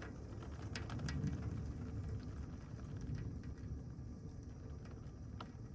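Heavy thunderstorm rain pouring down steadily, with a low rumble underneath as gusty wind moves through, and a few sharp ticks of drops landing close by.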